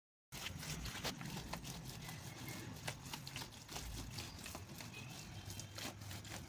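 Hands scraping and patting damp soil and mud clods on a floor, with scattered soft knocks and pats at an uneven pace.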